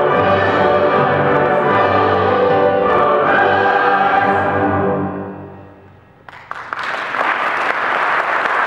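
A choir with orchestra sustains a closing chord, which dies away about five to six seconds in. The audience then breaks into applause that quickly builds and carries on.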